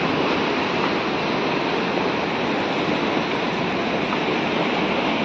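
The Ganges in spate, rushing fast and churning into waves along the ghat steps: a steady, even wash of water noise.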